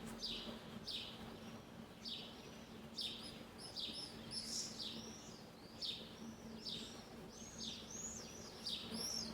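Small birds chirping: a string of short high chirps, each sweeping down in pitch, at about one or two a second. From about three seconds in, more arched, rising-and-falling chirps join in, growing busier toward the end, over a faint steady low hum.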